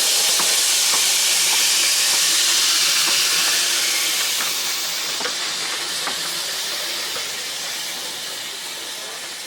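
Steam locomotive letting off steam: a loud, steady hiss that slowly fades over the last few seconds, with a few faint clicks.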